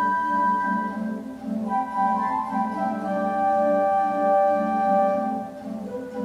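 Organ music: slow, held chords over a steady low note, the harmony changing a couple of times.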